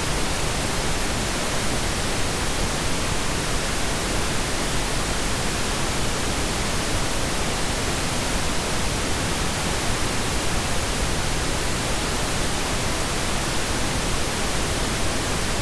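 Steady, even hiss spread across all pitches, unchanging throughout: the recording's own noise floor, with nothing else heard over it.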